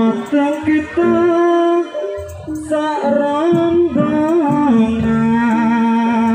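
Jaranan music: a long, sliding melody line held over a recurring low beat.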